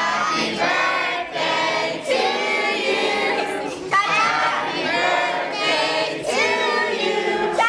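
A group of adults and children singing together in unison.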